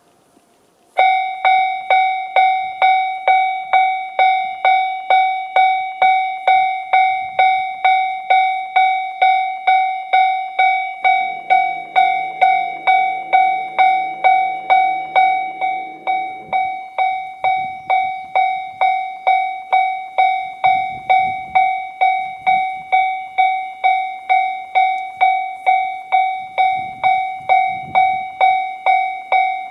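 Japanese railway level-crossing warning bell, the electronic JR standard tone, starting about a second in and ringing a steady ding about twice a second: the crossing is warning of an approaching train.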